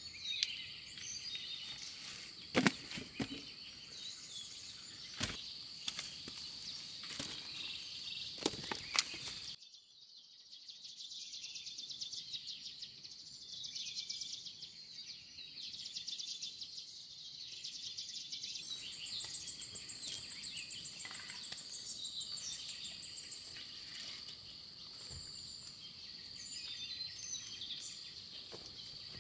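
Steady high-pitched insect chorus. Scattered knocks and rustles of handling sound over it and stop abruptly about ten seconds in. After that the insects' buzz pulses rapidly.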